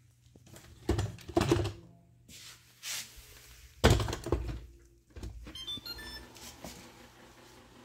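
Knocks and thumps as a robot vacuum is handled and set down, the loudest about four seconds in. Then, with a battery newly swapped for lithium-ion, it gives a short run of electronic beeps at stepped pitches as it is switched on.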